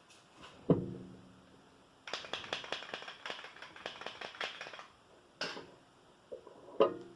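Hard plastic LEGO parts knocking and clicking. There is one sharp knock with a short ring, then a quick, uneven run of clicks lasting about three seconds, and two more single clicks near the end.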